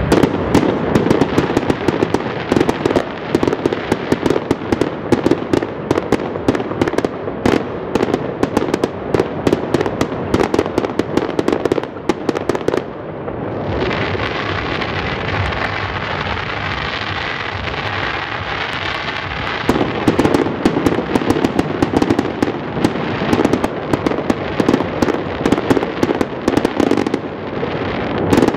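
Aerial fireworks going off in rapid volleys of bangs and pops. About halfway through, the bangs give way to a few seconds of steady hiss, then the rapid bangs start again.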